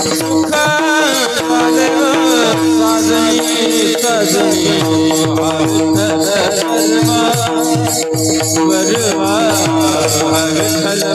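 Marathi devotional bhajan music: a held drone under a wavering, ornamented melodic line, with steady hand-drum strokes and a light rattling percussion.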